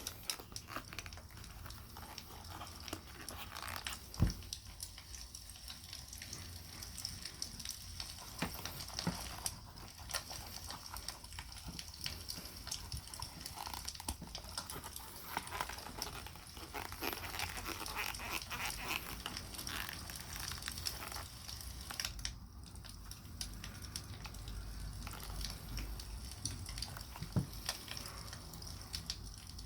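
Wood campfire crackling, with many small irregular pops and a couple of sharper, louder pops about four seconds in and near the end, mixed with soft rubbing of beeswax on leather.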